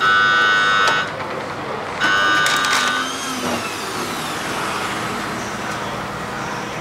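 Electronic alarm of a kitchen appliance beeping: long, steady beeps about a second each, two of them two seconds apart. After that, steady kitchen background noise with a faint falling whistle.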